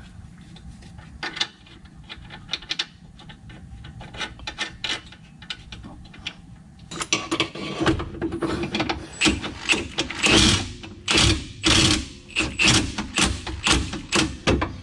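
Hand ratchet clicking in repeated back-and-forth strokes as the strut's lower mounting bolt is run in, faint at first and louder from about halfway through.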